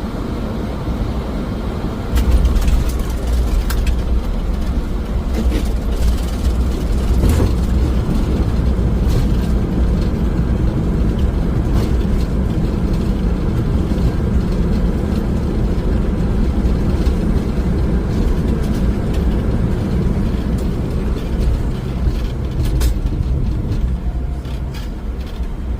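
Boeing 737NG on its landing roll: a heavy low rumble of wheels on the runway and engine noise, which swells sharply about two seconds in and eases off near the end as the jet slows. Scattered knocks and thumps come through from the runway.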